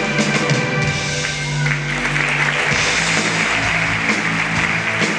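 Stage-show music, with an audience starting to applaud about two seconds in; the clapping carries on under the music.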